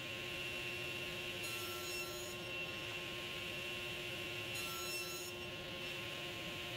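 SawStop table saw with a 40-tooth 10-inch blade running with a steady hum, crosscutting hard maple boards on a sled jig. Two brief cuts through the wood come about one and a half and four and a half seconds in.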